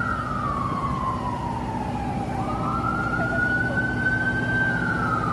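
Emergency vehicle siren wailing slowly: its pitch falls for about two seconds, climbs back up and holds, then starts to fall again near the end, over steady background noise.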